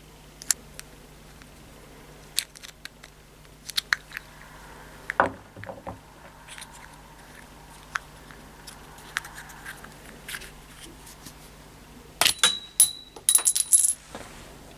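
Small metal parts clinking and tapping together in scattered light knocks, then a quick flurry of louder clinks with a brief metallic ring near the end.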